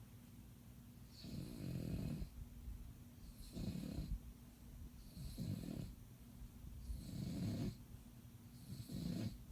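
Sleeping bulldog snoring: five rasping snores at a steady rhythm, about one every one and a half to two seconds.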